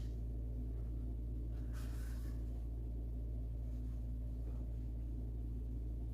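Steady low hum, with a faint brief rustle about two seconds in.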